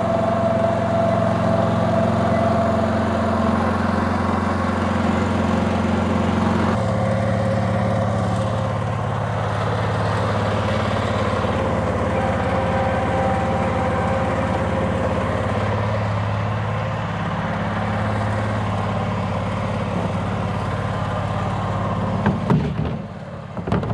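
Tractor engine running steadily, its tone shifting abruptly about seven seconds in.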